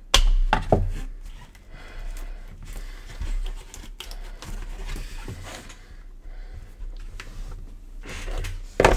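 Hands working open a sealed trading-card box and its packaging. There are two sharp clicks right at the start, then soft rustling and small knocks, and another sharp click near the end.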